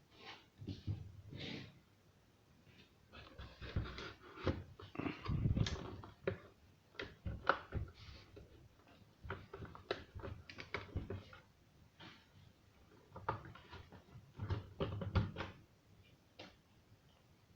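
Irregular clicks, knocks and scrapes of hands working on the opened old radio and its parts, in short clusters with pauses between.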